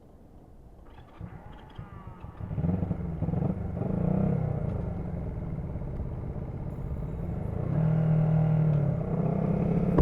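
Honda CB125T's parallel-twin engine running under way, its speed rising and falling, louder from about two and a half seconds in. It is running poorly: the carburettor setting isn't right with the silencer refitted.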